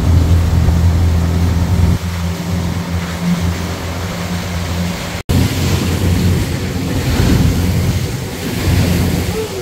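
Pontoon boat's outboard motor running steadily at cruising speed, with rushing wind and churning wake water. About five seconds in the sound drops out for an instant, and after it the wind and water rush is stronger than the engine hum.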